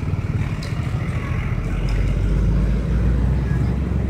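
Road traffic passing close by: car and motorcycle engines and tyres, a deep rumble that swells about two seconds in.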